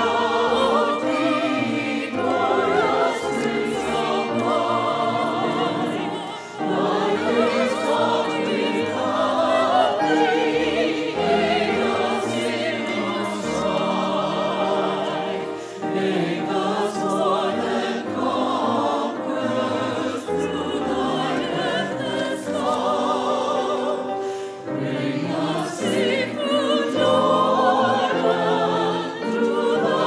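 Mixed adult choir singing a hymn in harmony, accompanied by handbells, with short breaks between phrases.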